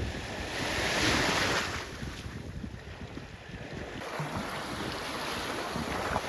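Ocean surf washing onto a beach, one wave surging loudest about a second in, with wind rumbling on the microphone.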